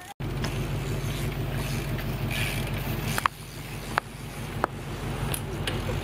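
BMX bike riding on concrete skatepark ramps: steady rolling noise under a low wind rumble on the microphone, with a few sharp knocks of the bike against the concrete in the second half.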